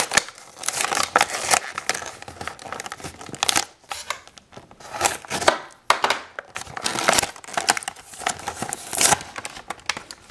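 Clear plastic blister packaging crinkling and crackling in irregular spurts as it is handled and pulled away from its cardboard backing.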